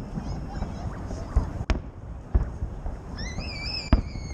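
Fireworks salute going off: several separate sharp bangs over a low rumble. A high wavering whistle starts about three seconds in and holds steady near the end.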